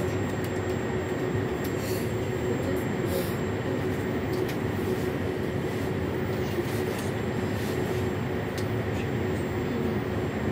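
Moskva-2020 metro car standing at a station with its doors open: a steady hum with a constant tone over even noise, and a few faint clicks.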